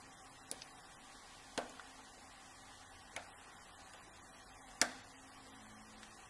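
Light metal clicks and taps of lock-picking tools working in an old Slaymaker wafer padlock: four sharp, irregularly spaced clicks, the last one about five seconds in the loudest.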